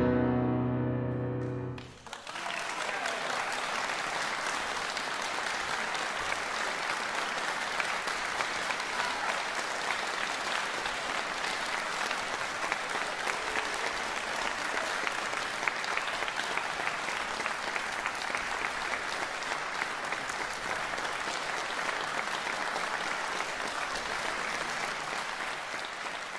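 The final chord of a Yamaha grand piano rings for about two seconds and then stops abruptly. A concert audience then applauds steadily for the rest of the time.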